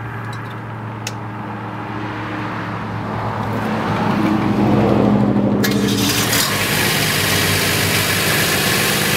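Fire engine pump engine running and throttled up over a few seconds as the pump is brought up to pressure. About halfway through, a steady loud hiss starts and continues over the engine hum.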